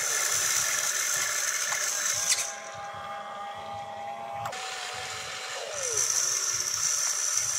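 RC excavator's electric drive motors whining as the model swings and works its arm; the high whine stops about two and a half seconds in and starts up again near the end.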